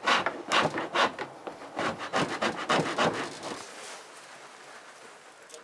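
Animal hide being scraped by hand with a handheld scraping tool: quick rasping strokes, about two or three a second, which stop after about three and a half seconds.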